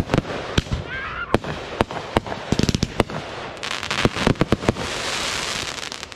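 Consumer fireworks going off in quick succession, many sharp bangs and pops, with a dense crackling spell a little past halfway lasting about two seconds.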